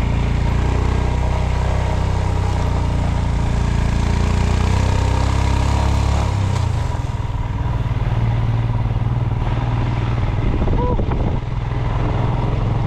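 Motorcycle engine running as the bike rides along, with wind rushing over the microphone. About six and a half seconds in, the engine note changes and the wind noise drops away.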